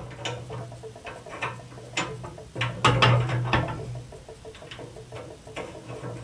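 Scattered light clicks and taps of metal tools working the screw on an old leaded-brass water valve while its washer is changed, over a low hum.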